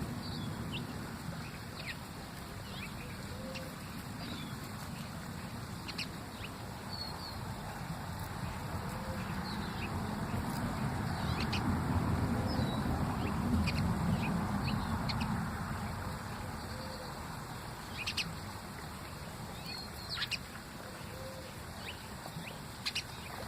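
Birds calling: short, high chirps scattered through, over a steady low rush that grows louder around the middle, with a few sharp clicks.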